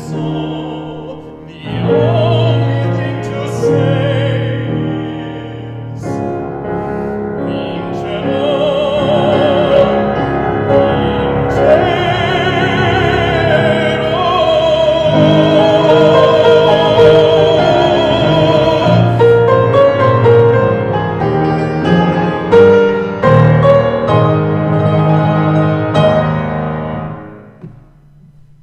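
Baritone singing operatically over piano accompaniment, holding long notes with a wide vibrato. The music stops near the end.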